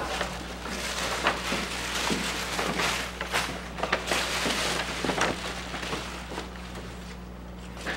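Tissue paper rustling and crinkling as it is pulled out of a paper gift bag, a run of sharp crackles that dies away near the end.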